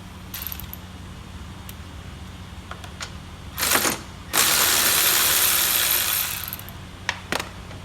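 Ratchet wrench working a 10 mm bolt loose: a short burst of ratcheting, then a loud run lasting about two seconds, followed by two sharp clicks near the end.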